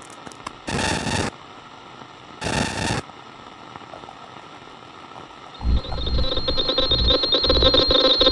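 Walkie-talkie radio static: a few clicks, then two short bursts of hiss about a second and a half apart, then a crackling, buzzing static with a steady whine that comes up and grows louder over the last few seconds.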